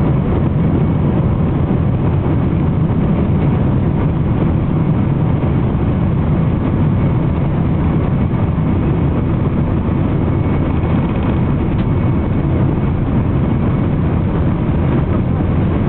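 Steady cabin noise inside a Boeing 767-300 while it taxis: a low, even engine and airflow hum with faint steady tones above it.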